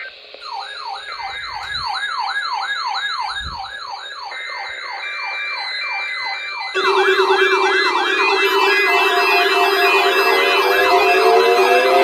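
Synthesised warbling alarm tone of an Emergency Alert System weekly test, sweeping up and down about four times a second. A little over halfway through it gets louder as a steady low tone and higher beeping tones join in.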